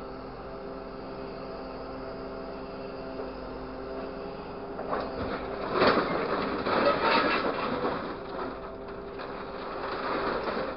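A grapple truck's diesel engine and hydraulic pump running steadily with an even hum. From about five seconds in, the knuckle-boom crane swings its grapple, adding loud metal rattling and knocking, loudest about six to seven seconds in.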